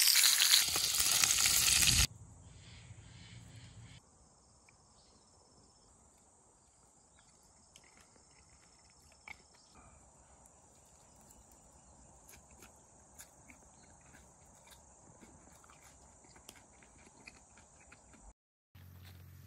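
Loud sizzling of food frying in a pan for about two seconds. It cuts off sharply to quiet forest ambience: a steady high-pitched insect buzz with scattered faint ticks and clicks.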